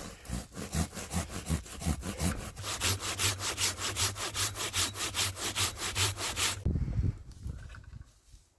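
Hand saw cutting through a branch or log, at a steady pace of about four strokes a second. The sawing stops near the end, followed by a short low thump.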